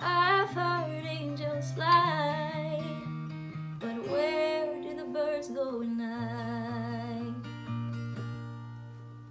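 A woman sings two long wordless notes with vibrato over acoustic guitar. After about six seconds the voice stops and the last guitar chord rings on and fades as the song ends.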